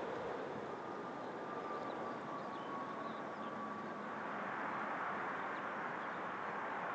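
Airliner's engines: a steady rushing sound with a faint high whine, over gusty wind noise.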